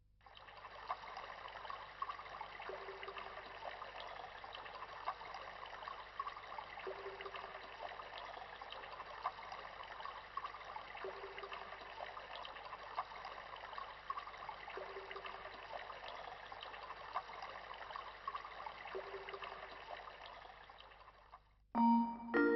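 Faint trickling, running water with many small clicks. A short low tone recurs about every four seconds, and the sound fades out near the end.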